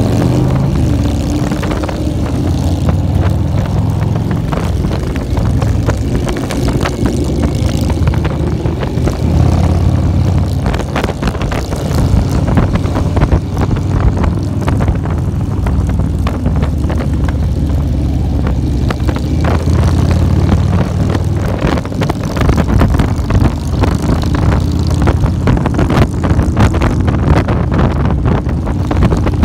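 Motorcycle engines running steadily while riding in a group of cruiser motorcycles, heard from the rider's seat. Wind buffets the microphone throughout.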